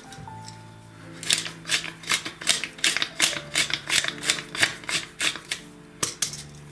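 Wooden pepper mill being twisted to grind peppercorns, giving regular ratcheting clicks about three times a second from about a second in, with two last clicks near the end, over background music.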